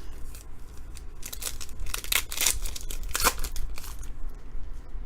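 Foil wrapper of a trading-card pack crinkling and tearing, in a run of short rustling strokes over about two seconds in the middle.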